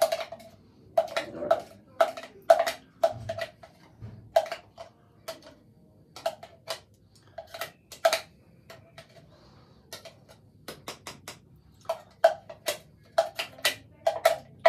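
Repeated sharp knocks on a plastic blender jar, tapped in irregular clusters to shake thick red ice-cream milkshake out into a cup.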